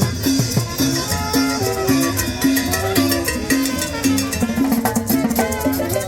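Latin tropical dance music, a cumbia/salsa-style band sound with bass line, percussion and shakers keeping a steady beat.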